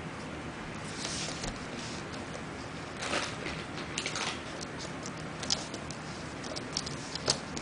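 A puppy's claws tapping and pattering on a hardwood floor as it moves about, with a few brief snuffling noises as it noses at treat crumbs on the floor.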